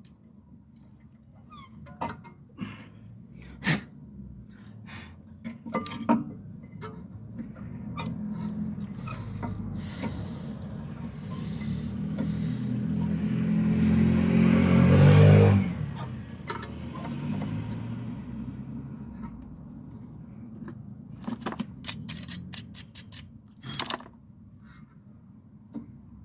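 Metal tools knocking and clicking on a car's rear brake assembly. A machine with a steady pitch builds up over several seconds and cuts off suddenly, and near the end comes a quick run of ratchet-like clicks.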